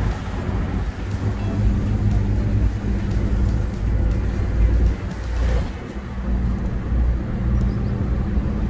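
Engine and road noise of a vehicle driving, heard from inside the cabin: a steady low hum.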